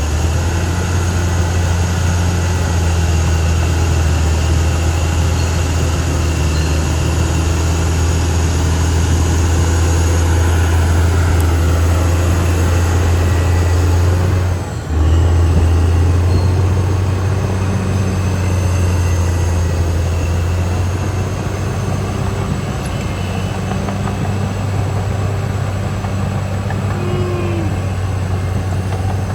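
Caterpillar D6R XL bulldozer's diesel engine running steadily under load, a deep even drone. The level drops briefly about halfway through, then resumes.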